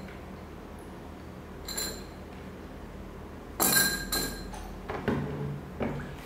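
Hard clinks and knocks of soaked trám fruits being put into a glass bowl and of plastic containers being handled and set down on a table. There are about half a dozen separate knocks, with the loudest cluster a little past halfway.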